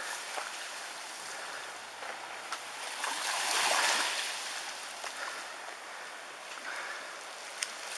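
Tsunami seawater rushing along a flooded street: a steady hiss of fast-flowing water that swells loudest about three to four seconds in, with a few faint clicks.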